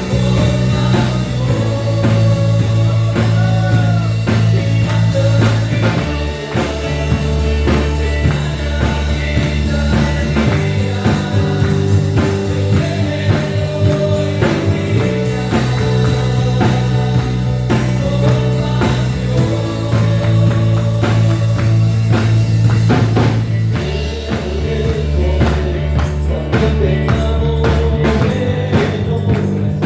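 Christian worship band music: drum kit, bass and guitar playing a steady groove, the bass changing notes every few seconds, with a voice singing in places.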